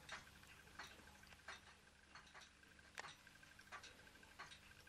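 Faint, light clicks, about one every three-quarters of a second, from a Ross yoke low-temperature Stirling engine's linkage as it turns very slowly and smoothly, over a quiet room hum.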